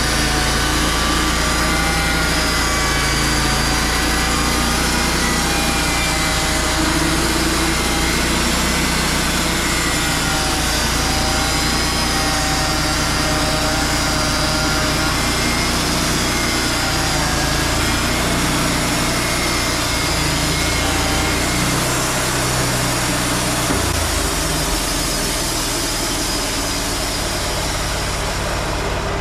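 Wood-Mizer LT35 portable band sawmill running steadily, its engine under way while the band blade saws through a cedar log. The low engine note shifts slightly about 24 seconds in.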